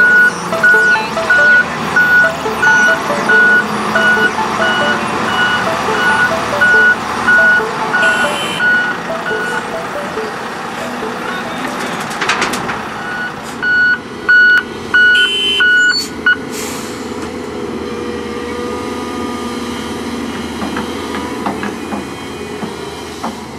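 Reversing alarm beeping steadily, about one beep every 0.7 s, over the diesel rumble of a Volvo A30C articulated dump truck backing up beside a crawler excavator. The beeping stops about ten seconds in. A thud follows about twelve seconds in as the excavator bucket drops its load of sand into the truck's steel bed. Then the alarm beeps again briefly and the diesels run on steadily.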